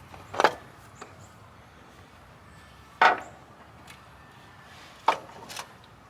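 Sharp knocks: one about half a second in, one about three seconds in, and two close together near the end, over a low steady background.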